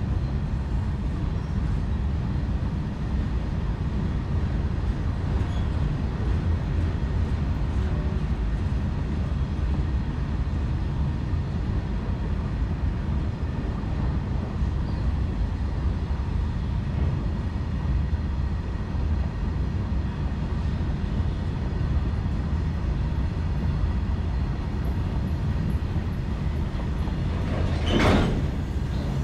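Empty open freight wagons rolling past on the rails: a steady low rumble and clatter of steel wheels. Near the end comes one brief, sharp, louder noise.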